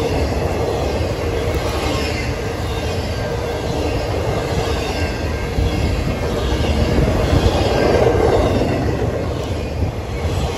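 Norfolk Southern double-stack intermodal freight cars rolling past close by: a steady deep rumble of wheels on rail with some high wheel squeal, swelling louder about two-thirds of the way through.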